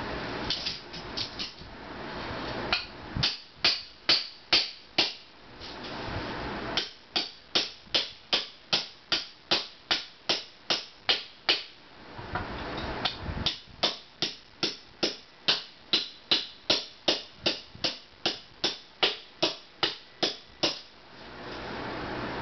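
Hand-tool work to fix a clearance problem: a few scattered strokes, then two long runs of rapid, evenly spaced strokes at about two to three a second, with stretches of steady noise between the runs.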